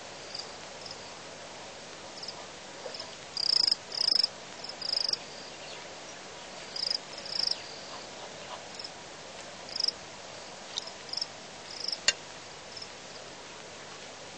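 Banded mongooses' high-pitched chirping calls: short chirps coming irregularly in clusters over a steady hiss. One sharp click about twelve seconds in.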